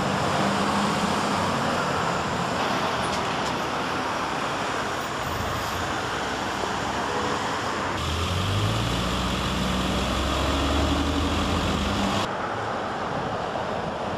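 Street traffic noise: cars passing on a road, with a vehicle engine's low hum coming up for a few seconds in the second half. The background shifts abruptly a few times.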